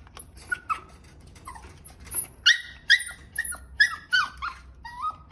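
A dog giving a quick series of short, high-pitched yips and whines, about two or three a second, growing louder in the second half.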